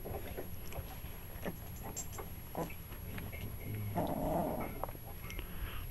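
Young pit bull puppies play-fighting, giving small growls, squeaks and whimpers as they wrestle, with a louder stretch about four seconds in.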